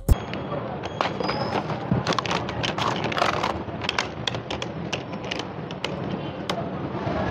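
Steady background noise of a busy market with scattered light clicks and knocks, most frequent in the middle.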